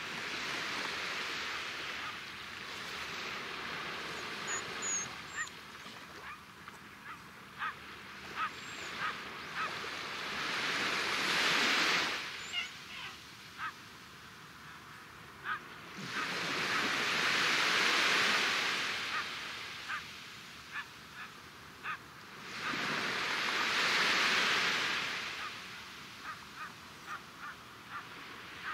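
Small waves breaking and washing up a sandy beach, each surge rising and falling away about every six or seven seconds. Between the surges, runs of short bird calls.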